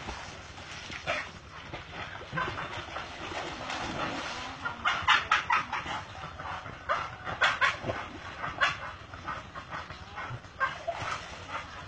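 Dog barking and yipping, short sharp barks in repeated clusters, most of them about five seconds in, between seven and nine seconds, and again near the end.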